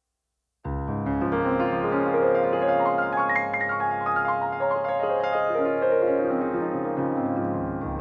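Background music starts abruptly about half a second in: a piano or keyboard track with sustained chords and a melody above them.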